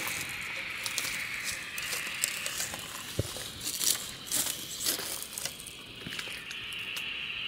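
Crickets chirring steadily, with scattered light clicks and crinkling rustles of handling close by.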